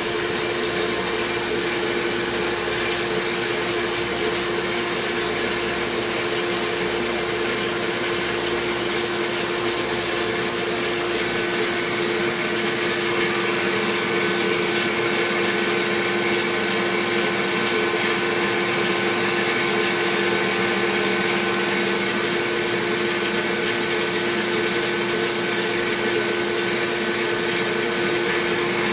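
A CNC milling machine's long end mill taking a roughing pass through an aluminum block: a steady spindle and cutting whine over constant cutting noise, with the hiss of a coolant mist spray.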